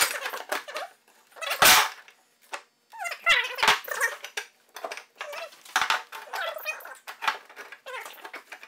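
A dog whining and yelping in high, wavering cries. Steel tubing and a metal square clank against a wooden workbench at the start and again a couple of seconds in.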